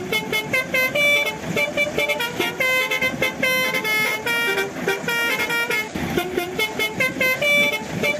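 Multi-tone 'telolet' bus air horn playing a quick tune of short honking notes at shifting pitches.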